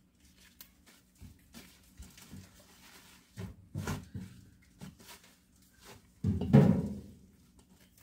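Bunches of wet mallow leaves being shaken and handled over a stainless steel sink: leaves rustling and slapping, with light knocks against the steel and one louder thump about six and a half seconds in.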